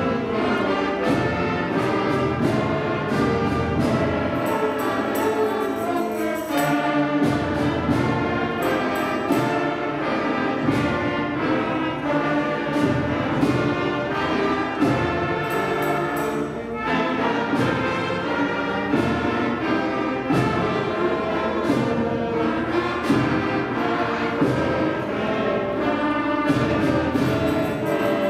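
Seventh-grade concert band playing a piece, brass to the fore, with percussion keeping a steady beat.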